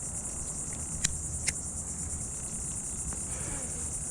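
Steady, high-pitched chirring of an insect chorus, with two sharp clicks about a second in.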